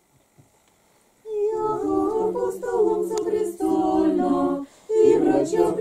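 A small mixed group of men and women singing Russian Orthodox church chant unaccompanied, in held notes. The singing begins about a second in after a near-silent pause and breaks briefly for a breath about a second before the end.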